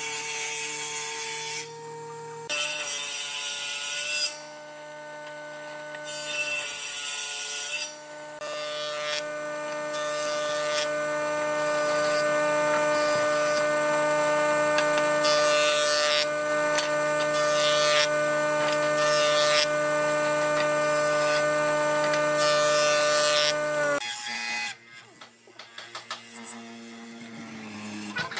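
Woodworking machines cutting wood. A table saw runs at first. Then a jointer-planer's motor hums steadily while boards are fed across its cutterhead in repeated noisy passes. About 24 seconds in, the sound drops to a quieter, uneven mortising machine boring into a chair leg.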